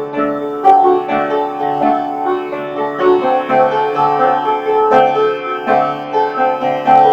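Background music: piano or keyboard playing a steady run of notes.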